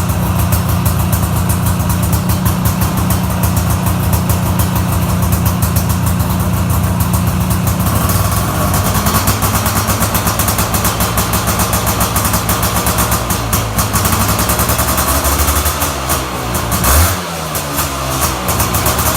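Polaris Scrambler 400's two-stroke single-cylinder engine running unmuffled-sounding and raw, first at a steady low idle. About eight seconds in it picks up to a faster, higher-pitched run. Near the end the revs rise and fall with throttle blips.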